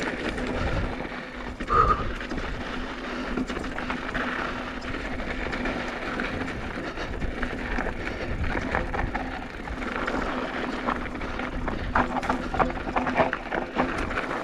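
Mountain bike coasting fast down a dirt trail: wind rumbling on the microphone over the sound of the tyres, with the bike rattling and knocking over rough ground in the second half.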